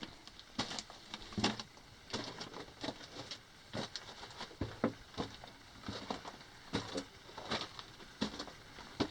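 A person moving over loose rock and gravel on a mine tunnel floor: irregular crunching and scraping steps, about one every half second to a second.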